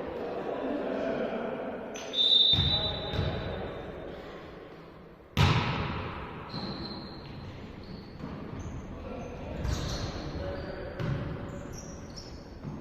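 Volleyball being struck during play: sharp ball hits, the loudest about two and five seconds in, with a few softer ones later. Sneakers squeak on the court floor between the hits, and players' voices are heard.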